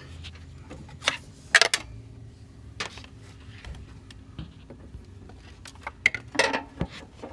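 Sharp metallic clicks and clinks of long pliers working against the intake manifold linkage as a loose intake manifold runner control rod is worked back onto its lever. A few scattered clinks, loudest about a second and a half in, with another cluster near the end, over a low steady hum.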